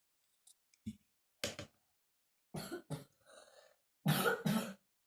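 A person coughing in a short series of separate coughs, the loudest two in quick succession near the end.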